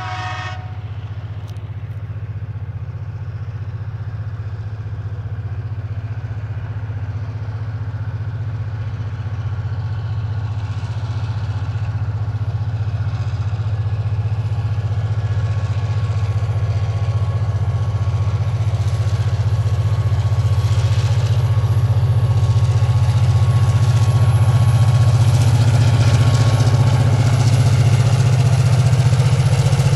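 Three diesel freight locomotives working hard at full throttle up a steep grade, a low, steady engine drone that grows steadily louder as they approach and peaks as the lead units pass.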